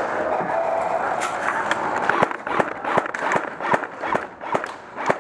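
Footsteps on a concrete floor. They start about two seconds in and keep a steady brisk pace of about three steps a second.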